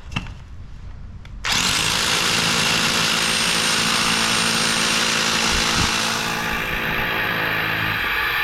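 A Topshak rotary hammer drill starts up about a second and a half in and runs steadily with a high motor whine, drilling into concrete.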